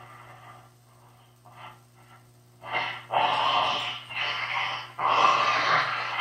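A man's heavy, rasping breaths for a werewolf transformation: faint short puffs at first, then three loud, long breaths from a little under halfway through.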